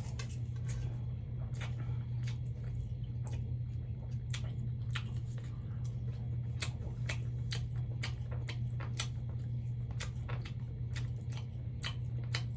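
Close-miked mukbang chewing of spicy ramen noodles and oil-fried shrimp: irregular wet mouth clicks and smacks. A steady low hum runs underneath.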